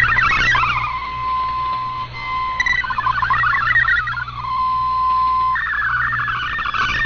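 Digital data-mode signal from the Shortwave Radiogram broadcast received on a shortwave radio: a warbling stream of rapidly shifting tones, broken twice by a single steady tone. About five and a half seconds in, a wider, denser band of tones takes over, with a low hum underneath.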